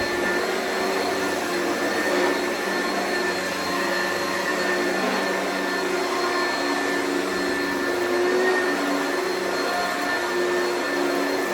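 Oreck vacuum cleaner running steadily, a continuous motor whine over an even rush of airflow, with slight shifts in tone as it is worked over the floor.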